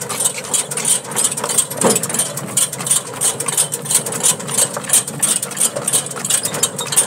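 A horse-drawn cart rolling over a gravel road: the wheels rattle and crunch on the stones under the horse's steady hoofbeats, about three clatters a second. A brief rising squeak comes about two seconds in.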